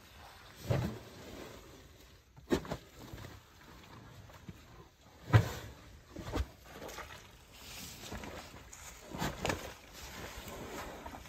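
An African elephant kneeling and shifting her weight in a wet mud wallow: several heavy, squelching thumps of mud, the loudest about five seconds in.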